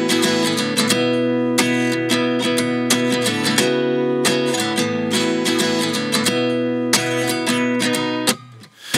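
Background music: a strummed acoustic guitar playing chords in regular strokes, with a short break near the end.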